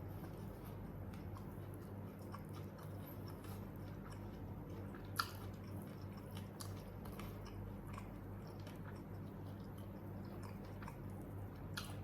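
Close-up mouth sounds of a person chewing and biting while eating ayam geprek (smashed fried chicken) with rice: small wet clicks scattered through, one sharper click about five seconds in, over a steady low hum.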